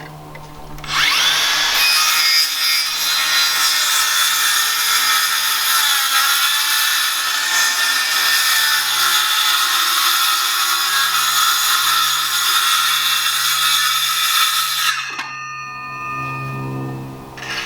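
Power saw cutting wood, likely plywood: the motor spins up about a second in, runs loud and steady through a long cut with a slight drop in pitch partway through, then shuts off and winds down near the end.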